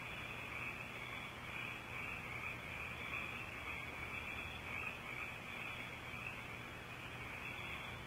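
A continuous chorus of many frogs calling together, a dense, steady high-pitched trill with a slight pulsing texture and no pauses.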